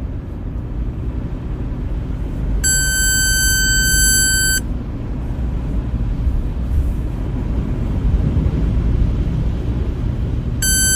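Steady low rumble, with a high, steady buzzer-like tone sounding for about two seconds a few seconds in and again briefly at the very end.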